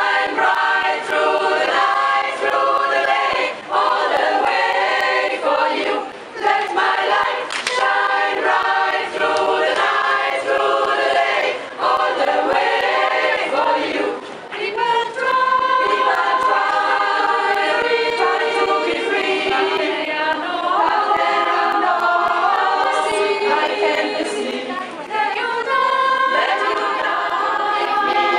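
A mixed group of singers, a choir, singing a cappella in harmony, phrase after phrase with short breaks for breath.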